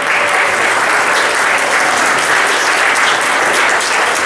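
Congregation applauding, loud and steady.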